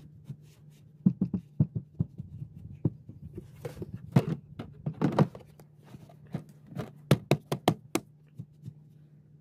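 Hands knocking and pressing a carpeted panel into place, then a black acrylic tackle box frame being pushed and fitted into the opening beneath it, giving irregular knocks and clicks with a run of sharp clicks about seven to eight seconds in. A faint steady low hum sits underneath.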